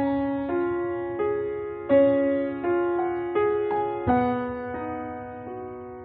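Background piano music: a slow melody with a note or chord struck about every second, each ringing on and fading.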